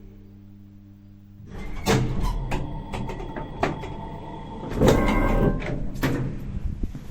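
Old mechanical elevator door sliding and clanking over a low steady hum. From about a second and a half in comes a run of clunks, knocks and rattles, loudest about five seconds in.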